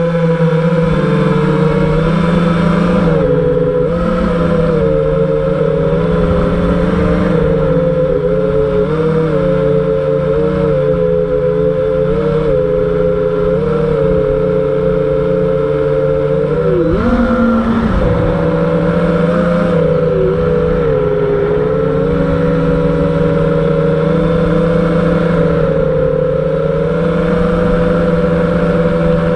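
A 5-inch FPV quadcopter's 2400kV brushless motors and tri-blade props buzzing in flight. The whine wavers up and down with the throttle, with a sudden drop and punch back up about two-thirds of the way through.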